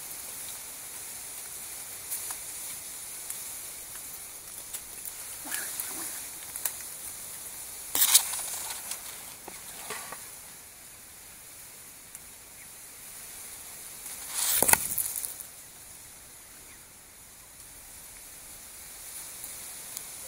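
Reed and willow foliage rustling and brushing against the microphone in a few short bursts, the loudest about eight and fifteen seconds in, over a steady high hiss.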